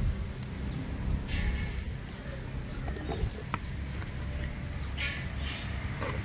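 Steel ladle stirring a thick lentil-and-greens kootu in a pot, with a few clinks and two short scrapes against the pot, about a second in and again about five seconds in, over a steady low rumble.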